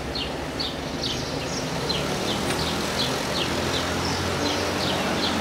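A small bird chirping over and over, short falling chirps about two or three a second, over the low hum of street traffic.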